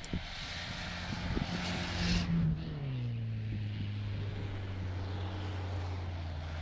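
Off-road 4x4 engine driving through deep snow. Its note drops about two and a half seconds in and then holds steady. A hiss over the first two seconds cuts off suddenly.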